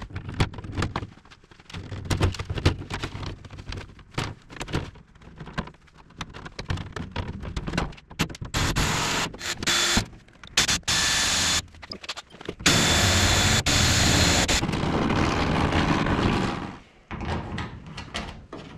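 Handling knocks and clicks as the static tubing and port are worked loose. From about eight seconds in, a cordless drill runs in several bursts, drilling in aluminium sheet; the longest burst lasts about four seconds.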